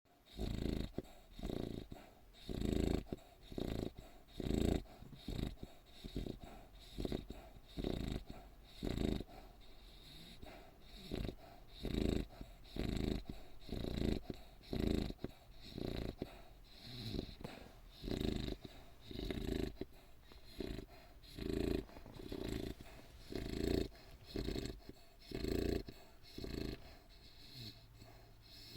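A sleeping pit bull–type bully dog snoring, with short rasping snores about once a second, over and over.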